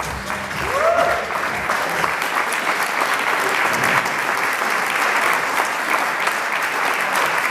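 Audience applauding, the clapping building within the first two seconds and then holding steady, as the last of the dance music cuts off in the first half-second.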